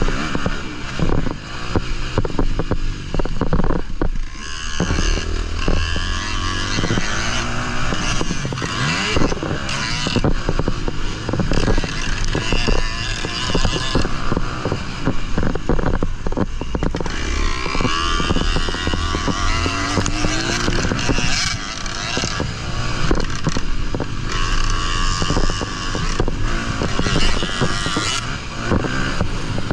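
Honda 250 motocross bike engine, heard from its onboard camera, revving up and dropping back again and again as it is ridden hard round a dirt track, with wind rushing over the microphone.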